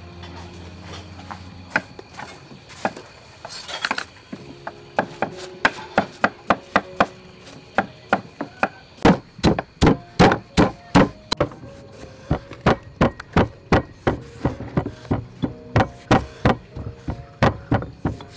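Pestle pounding spices in a stone mortar: a steady run of sharp strikes, about two to three a second, mixed with a knife chopping on a wooden cutting board near the end.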